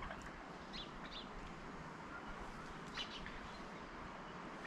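Small birds chirping: a few short, high chirps about a second in and again around three seconds, over a steady faint background hiss.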